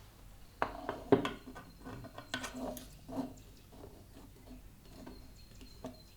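Hard objects being handled and set down on a work surface: a quick series of knocks and clatters, loudest about a second in, then a few faint clicks.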